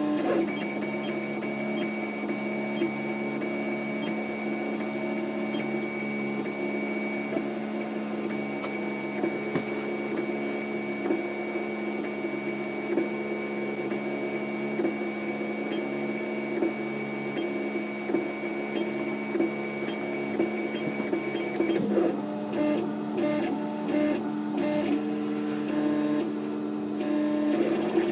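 Home-built 3D printer running a print, its motors whining and buzzing in a steady drone of tones as the print head moves back and forth. About three quarters of the way through, the moves turn shorter and choppier, with quick stop-start strokes.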